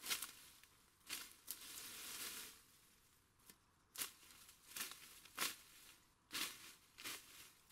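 Leafy undergrowth rustling and tearing as weeds and stems are pulled by hand: a series of short scratchy swishes about once a second, with one longer rustle near the start.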